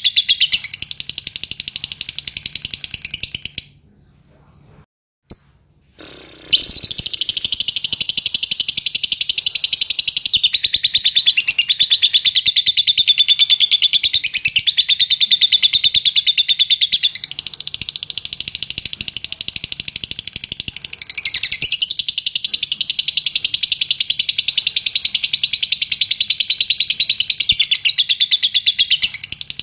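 Fischer's lovebird chattering in a long, rapid, unbroken stream of high-pitched chirps. It stops for about three seconds a few seconds in, then starts again and keeps going without pause.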